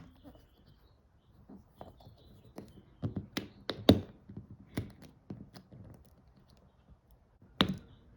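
Irregular small clicks, taps and knocks of hands handling small hard parts, about a dozen over several seconds, with a louder knock near the end.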